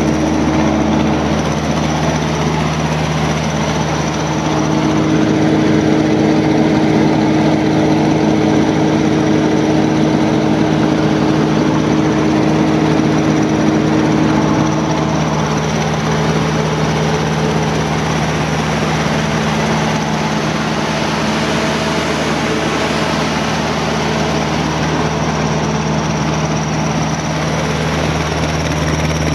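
A 275 kVA Perkins diesel generator set running steadily, with an even low engine hum and a constant noisy blow over it.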